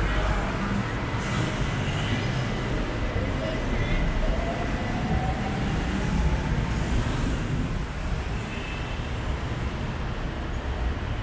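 Steady city road traffic: engines of passing cars and motorbikes with a constant low rumble, and one engine rising in pitch near the middle.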